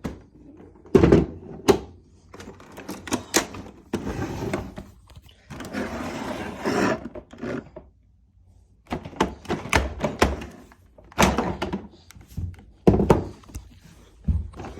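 Hard plastic knocks and clunks, with scraping and rattling in between, as the water tanks are unlatched and lifted off two Hoover upright carpet cleaners, a SteamVac Widepath and a PowerScrub XL.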